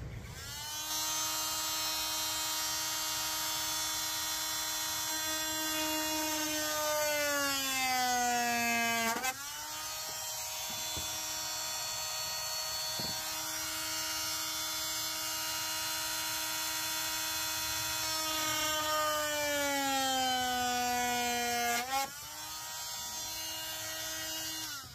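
Corded oscillating multi-tool running while cutting a plastic cup-holder console panel, with a steady buzzing whine. Twice the pitch sags as the blade bogs down in the plastic, then jumps back up. The tool stops near the end.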